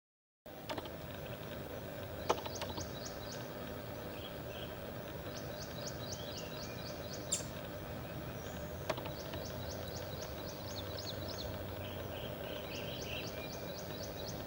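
A bird calling in three runs of quick, high, short notes, about five a second, with softer lower chirps between, over a steady outdoor hiss; a few faint sharp clicks.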